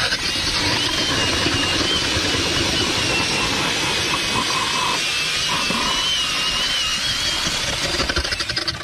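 Ridgid cordless drill spinning a red ice auger, boring into lake ice: a steady motor whine over the hiss and grind of the blades cutting and throwing out ice chips.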